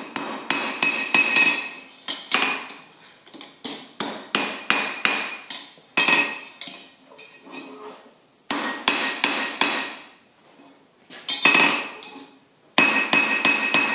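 Hand hammer striking a steel bar on an anvil in runs of quick blows with short pauses, each blow ringing out; the work is held at the back of the anvil, where it is ringy.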